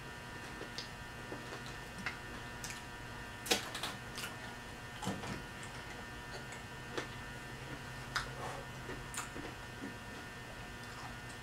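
A person chewing pizza, with irregular wet mouth clicks and lip smacks, the loudest about three and a half seconds in, over a steady low electrical hum.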